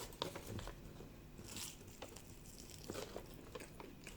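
Faint biting and chewing of a soft stuffed bread, heard as a scatter of small mouth clicks and crunches.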